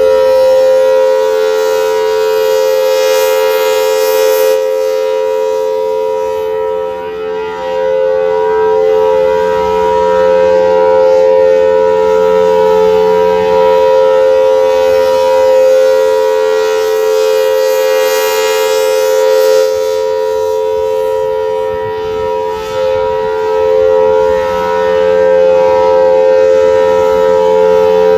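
Federal Signal Thunderbolt 1000T outdoor warning siren sounding its full alert test as a steady tone that holds one pitch. It grows louder and fainter about every 15 seconds as the rotating siren head sweeps toward and away.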